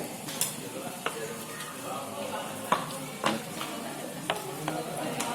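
Cutlery and plates clinking about six times at a meal table, over a steady background hiss.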